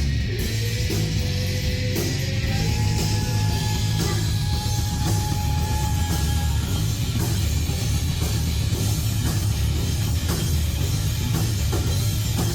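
Rock music with drums and guitar playing steadily.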